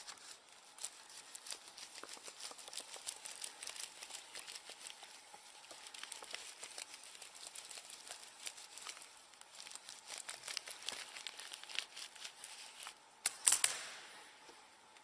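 Cloth wiping over a laptop keyboard: faint rustling and rubbing with many small clicks from the keys. About 13 s in there is a short, louder rush of hiss.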